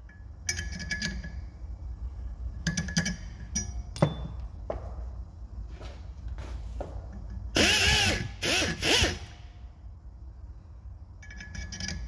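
Pneumatic die grinder run in several short bursts, deburring a small hinge part held at the vise. The loudest are three quick runs about two-thirds of the way through, each winding up and back down in pitch, with a sharp knock about four seconds in.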